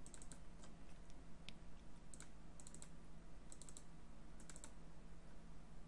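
Faint computer mouse clicks, mostly in quick pairs like double-clicks, about six times over a steady low hum.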